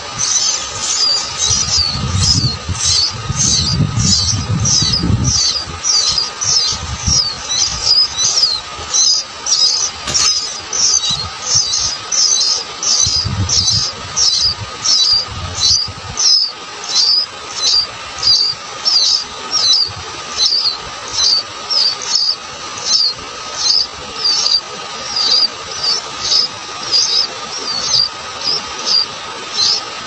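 Sooty-headed bulbul nestlings begging: short, high, thin calls repeated about twice a second without a break.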